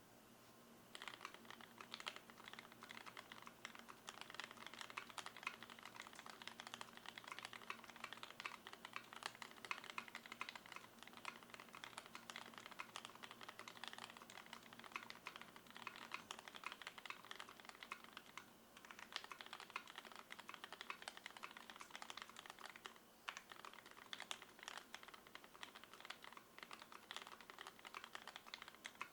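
Continuous typing on a KBDFans Tofu WKL mechanical keyboard with lubed Gateron Black linear switches and GMK keycaps, the case damped with shelf liner and foam. A dense stream of key clacks starts about a second in, broken by two brief pauses in the later part.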